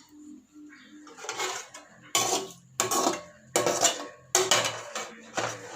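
A metal spoon scraping and knocking against a cooking pot, five strokes about two-thirds of a second apart starting about two seconds in, as chicken curry is scooped in for a layer of biryani.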